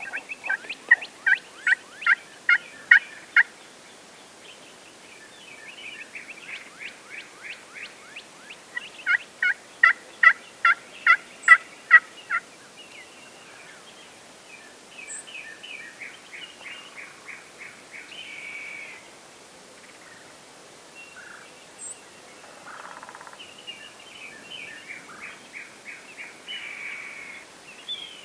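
Wild turkeys yelping: several runs of loud, evenly spaced notes, about three a second, in the first half, then softer and quicker calling.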